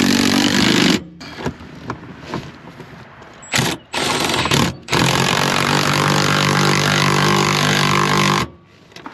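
A cordless power tool spins an 18 mm socket on an extension, running seat-mount nuts down onto their floor studs. It runs steadily, stops about a second in, gives two short spurts around the middle, then runs steadily again until shortly before the end.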